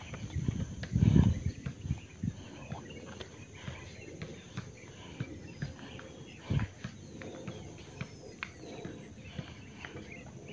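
Close handling noise from a freshly caught snakehead held at the microphone: irregular knocks and rustles, loudest about a second in and again a sharp knock past the middle, with faint bird chirps behind.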